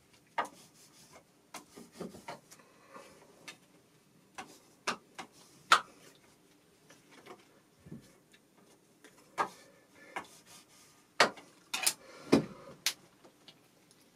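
Handling of a printed temporary-tattoo sheet with its plastic adhesive film: irregular sharp clicks and snaps with a few short stretches of rubbing over the sheet.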